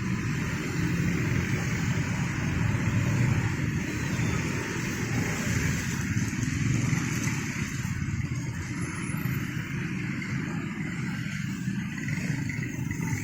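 Steady rumble of passing vehicles at a railway level crossing, easing off a little over the last few seconds.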